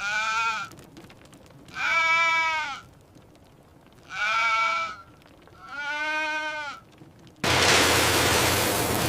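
Goats bleating four times, each call a drawn-out pitched bleat. About seven seconds in, a loud steady noise starts abruptly and continues.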